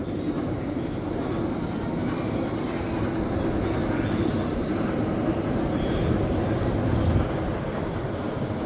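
Swarm wing roller coaster train climbing its lift hill: a steady mechanical rumble that builds slightly, then eases about seven seconds in.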